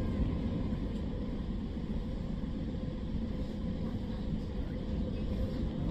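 Running noise of a passenger train heard from inside the carriage while underway: a steady low rumble of wheels on track with a faint steady hum above it.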